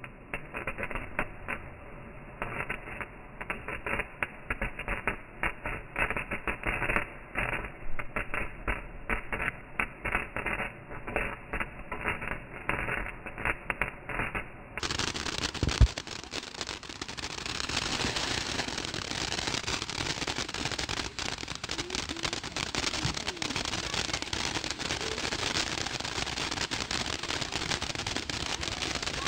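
Ground fountain firework spraying sparks with a rapid crackle of many small pops. About halfway through, the crackle becomes dense and steady, with one louder single pop around that point.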